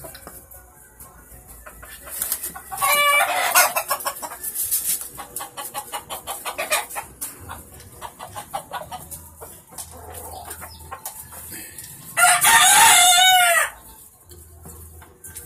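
Gamecock crowing twice, a few seconds in and again about ten seconds later, with clucking in between.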